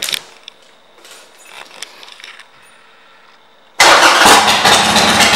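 Harley-Davidson Sportster 1200's Evolution V-twin with aftermarket pipes comes in abruptly loud almost four seconds in and runs with a rapid pulsing beat. Before that, only faint clicks and rustles of handling.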